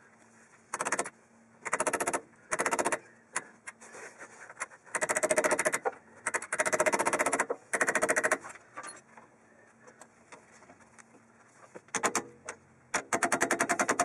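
Hand tools working a badly corroded brake caliper pin loose: repeated short bursts of rapid metallic clicking, about a dozen clicks a second, with the longest burst near the end.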